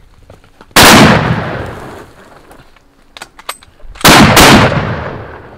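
Heavy big-game double rifles firing at a charging wounded buffalo: one shot about a second in, then two shots in quick succession about four seconds in, each echoing away for over a second. Faint metallic clicks from the rifles come between the shots.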